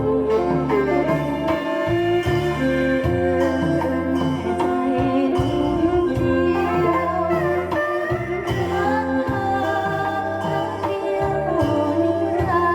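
A hybrid Thai bowed fiddle (so) with a metal body and cat-skin face playing a sliding, gliding melody over a backing track with a bass line and steady beat.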